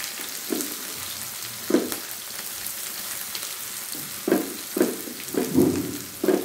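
Freshly chopped onion sizzling steadily in hot oil in a steel kadhai, just tipped into a tadka of cumin, bay leaf and dry red chillies. A few short, louder sounds cut in over the sizzle, most of them in the second half.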